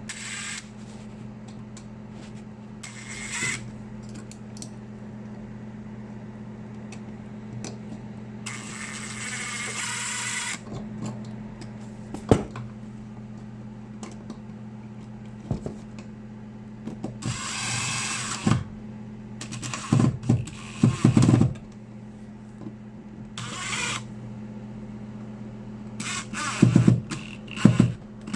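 Workshop handling and tool noise over a steady low hum: a few scraping or whirring bursts of a second or two, and scattered knocks, mostly in the second half.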